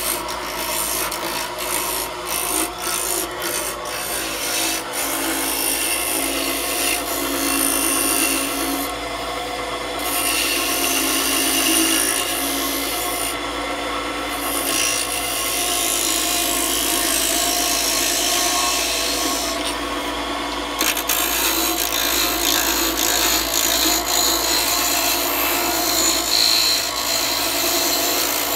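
Wood-turning lathe spinning a wooden spinning-wheel bobbin while a hand-held turning tool cuts it: a continuous scraping hiss of the cut over the lathe's hum, breaking off briefly three times as the tool comes off the wood.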